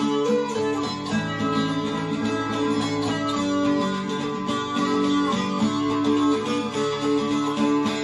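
Dulcimer music playing from a vinyl record: plucked notes over steady held drone tones.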